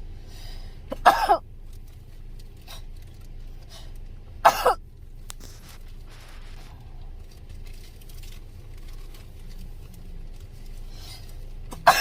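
A person coughing in short bursts during a nasal swab, as the swab irritates the nose: about a second in, again around four and a half seconds in, and once more at the very end.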